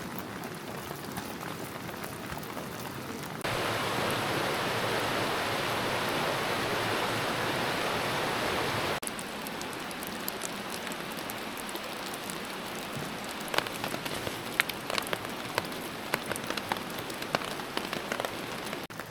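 Steady rain falling. Twice the sound changes abruptly: about three seconds in it becomes a louder, even rush, and it drops back at about nine seconds. From about thirteen seconds on, sharp single drips spatter loudly above the rain.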